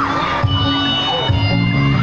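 Backing music of a pop song playing between sung lines, with a crowd cheering over it.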